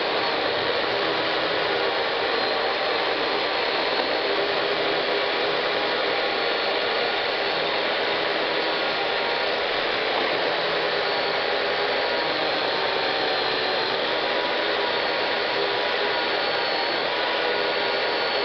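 Chainsaw running steadily at high speed, cutting through a large log.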